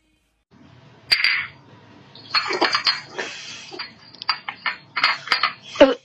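A kitten eating dry cat food from a plate: an irregular run of short crunches and clicks.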